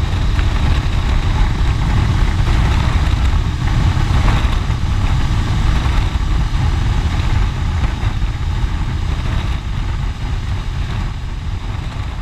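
Honda Transalp 650 V-twin motorcycle cruising at road speed, heard from an onboard camera: steady engine and road noise under a heavy rush of wind on the microphone.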